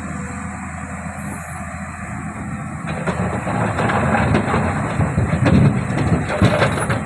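Komatsu excavator's diesel engine running steadily. About three seconds in, a louder grinding and clattering of rock starts as the bucket works into the boulders.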